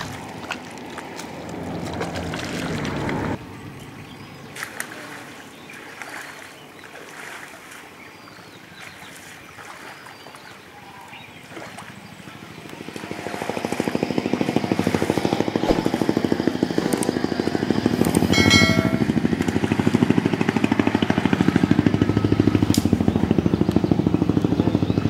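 An engine running steadily with a fast, even pulse, which comes in about halfway through and becomes the loudest sound.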